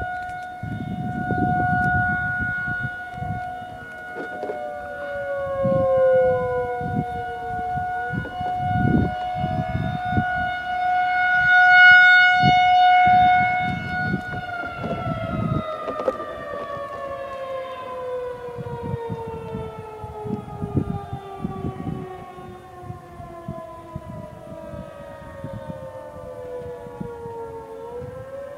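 Federal Signal 2001 outdoor warning siren holding a steady alert tone, then winding down with a long, slow fall in pitch from about halfway through. Fainter distant sirens rise and fall in the attack signal underneath.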